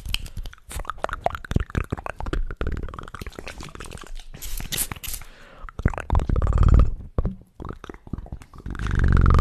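Close-miked ASMR mouth sounds: a quick run of wet clicks and smacks, then two louder, low, throaty voiced sounds, one about six seconds in and one near the end.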